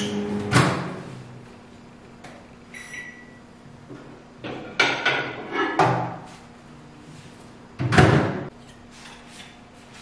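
Microwave oven door clunking open and shut and a plate being handled, a few separate knocks with the loudest about eight seconds in. A short beep sounds about three seconds in.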